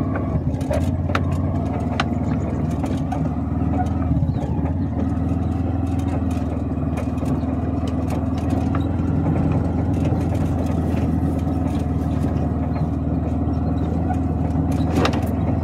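A vehicle engine running steadily, heard from aboard while riding, with a constant low hum and occasional knocks and rattles, the most marked near the end.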